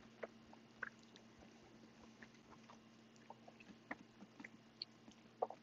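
Quiet eating sounds: chewing, with scattered faint clicks of a fork against a plate while a steak is cut and eaten.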